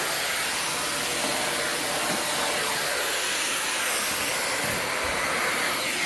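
Vacuum cleaner running steadily, pulling air through a winged pivoting floor brush on a hard floor: an even, airy suction rush.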